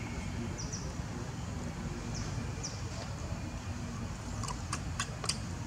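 Outdoor ambience: a steady low rumble, with a small bird chirping now and then and a few sharp clicks near the end.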